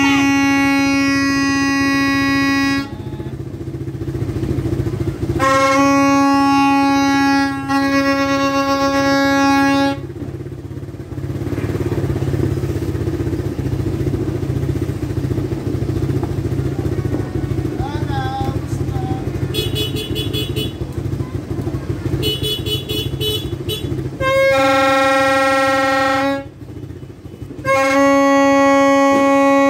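Plastic New Year's horn (torotot) blown in several long blasts, each held on the same steady note. Between the blasts a ground fountain firework hisses as it sprays sparks.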